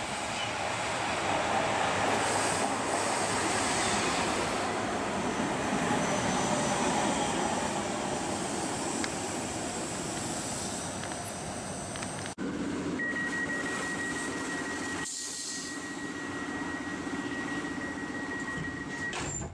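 Electric train running into a station, its wheels and motors making a continuous rushing rumble. After a cut, a steady high-pitched tone over a low hum lasts about six seconds.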